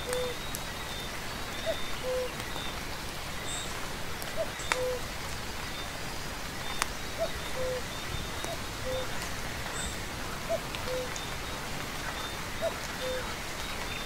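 Steady rain falling, with a few sharp drop hits. Under it a short, low two-note animal call repeats every second or two, and a high, rapid chirping goes on throughout.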